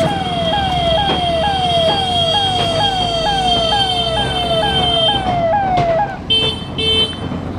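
Ambulance siren sounding in fast repeating falling sweeps, about two a second, over a steady high tone. The siren cuts off about six seconds in, and two short horn blasts follow.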